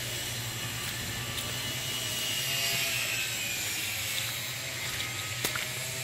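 A steady low motor hum, with a faint thin high whine above it and a single sharp click about five and a half seconds in.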